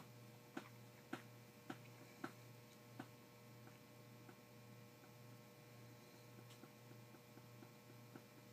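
Near silence: faint sharp clicks at a regular pace, about two a second, over a steady low electrical hum. The clicks are clearest in the first three seconds and fainter after that.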